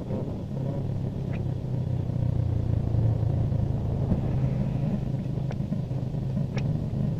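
A steady low rumble that grows louder about a second in, with a few faint sharp clicks over it.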